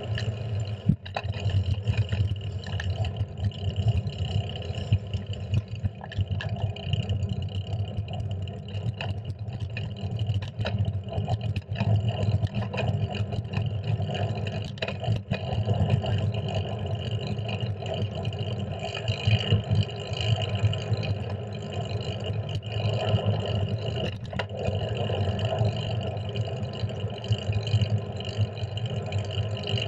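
Steady wind rush and road rumble from a fixed-gear bicycle riding along a street, heard through a handlebar-mounted camera, with scattered short knocks from bumps in the road.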